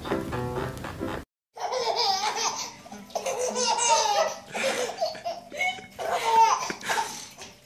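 A baby laughing in repeated high-pitched bursts. Background music plays briefly at the start and cuts off about a second in.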